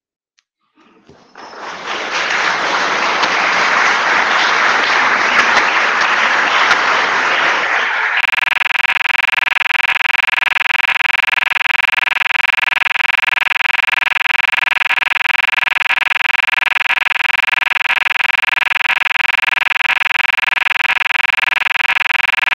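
An audience applauding after a talk. About eight seconds in, the applause cuts off abruptly and a loud, steady electronic buzz takes over: one unchanging tone with many overtones.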